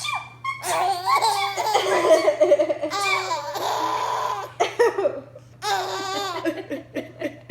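Baby laughing in several long bursts, breaking off briefly about five seconds in.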